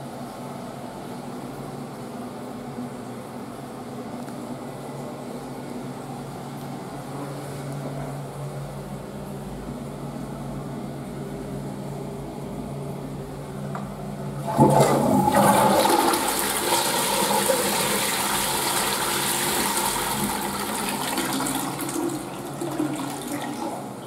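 A steady low hum. About two-thirds of the way in, a Japanese squat toilet is flushed from its wall-mounted cistern with a sudden loud rush of water, which runs for about nine seconds and then tapers off.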